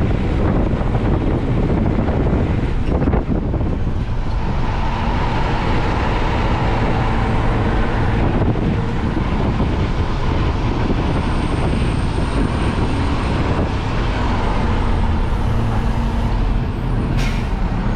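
Side-loader garbage truck's engine and road noise inside the cab while driving, a loud steady rumble. A faint whine runs through the middle, and there is a short sharp sound near the end.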